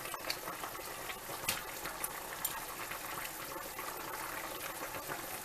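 A pot of chicken broth boiling on the stove, bubbling steadily, with a few light clicks.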